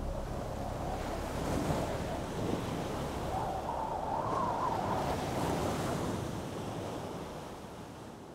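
Sea waves washing with wind, swelling about halfway through and fading toward the end.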